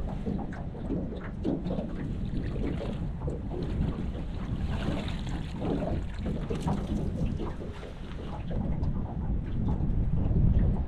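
Wind rumbling unevenly on the microphone, with splashing water around the boat.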